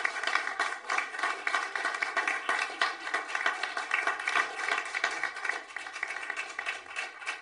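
Audience applause: many hands clapping in a dense, steady patter that dies away near the end.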